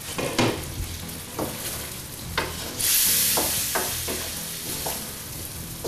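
Jeera chicken sizzling in a wok, with several sharp knocks as it is handled. About three seconds in, a loud burst of hissing sizzle starts suddenly, then slowly dies down.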